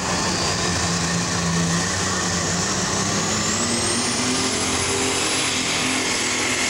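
Unlimited super stock pulling tractor's turbocharged diesel engine running hard under full load as it drags the weight sled. A high whine rises in pitch about three seconds in and then holds steady.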